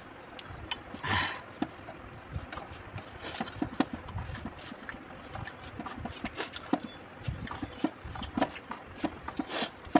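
Close-up eating sounds: chewing and lip smacking, with fingers mixing rice on a steel plate, a steady string of short wet clicks. A brief louder sound about a second in, just after a drink from a cup.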